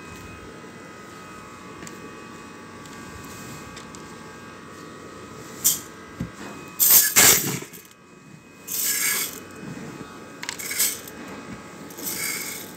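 Dry grains rattling and hissing as a hand scoops and sweeps them over a sack, in several short bursts, the loudest about seven seconds in. A faint steady hum runs underneath.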